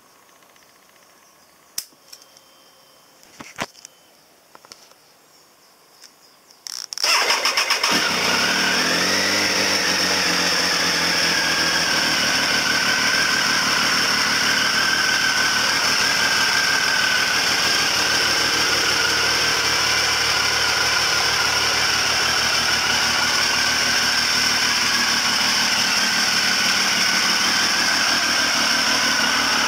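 Triumph Speed Triple 955i's fuel-injected inline three-cylinder engine started after a repair of its split idle-air-control-valve vacuum hose. A few faint clicks, then about seven seconds in a brief crank, and the engine catches, its revs rise briefly and settle into a steady idle.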